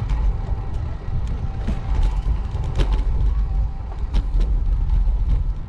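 City street noise heard from a moving bicycle: a steady low rumble with passing cars and a few sharp clicks.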